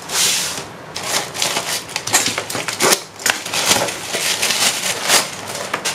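A thin black plastic shipping bag crinkling and rustling as it is handled and pulled off a boxed package, in a run of irregular sharp crackles.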